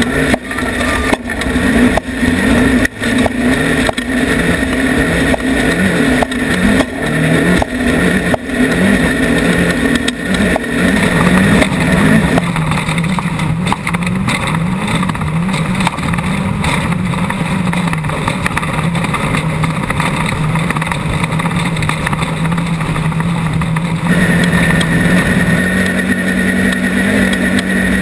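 Off-road race vehicle's engine revving up and down about once a second, with repeated knocks and bangs as it works over rough ground. After about twelve seconds it settles into a steady, slowly rising pull, and is held a little higher and louder near the end.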